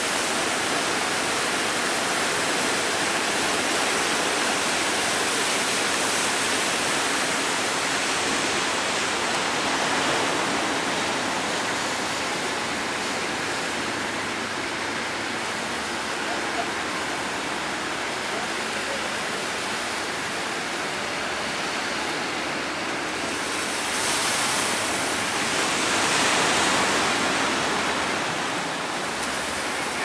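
Breaking ocean surf: a steady rush of churning waves, swelling louder about ten seconds in and again in the last few seconds.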